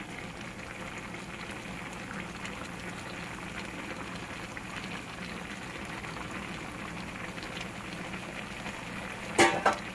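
Pot of gamjatang (pork-bone stew) bubbling at a steady simmer under a heap of bean sprouts, a soft continuous crackle of small bubbles. A brief louder sound cuts in near the end.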